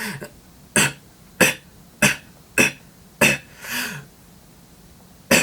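Beatbox cough snare demonstrated over and over: about seven short, sharp throat bursts, roughly one every half second with a pause before the last. Each is made by cutting off an exhale with a throat-clearing push, still loose-sounding before the mouth is rounded to tighten it.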